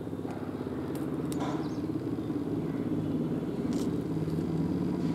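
An engine running steadily with a low, even, pulsing sound, a little louder in the second half, with a few faint ticks over it.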